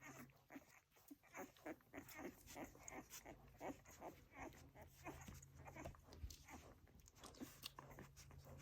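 Welsh Springer Spaniel puppies nursing: faint suckling and smacking, a quick run of soft clicks about two or three a second, over a low steady hum.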